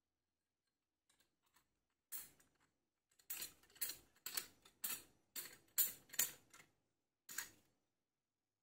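About ten sharp metallic clicks and short scrapes in an uneven run, from the homemade saw's blade and nut fitting being worked against and into its steel-pipe handle.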